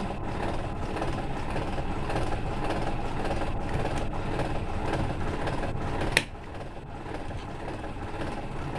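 Pliers working wire ends at a plastic junction box, heard as small handling noises over a steady low rumble. One sharp click comes about six seconds in, after which the rumble is a little quieter.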